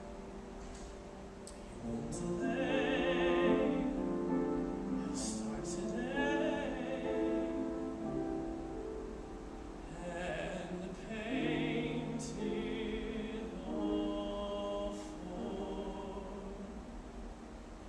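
Live music: the slow closing passage of a musical-theatre song, with long held notes, some wavering in vibrato.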